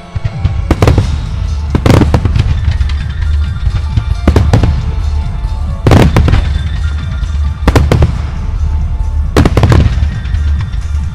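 Music starmine fireworks: a barrage of shells bursting in sharp bangs every second or two, some in quick pairs, over a continuous low rumble and crackle. Music plays alongside. The barrage swells up suddenly at the start.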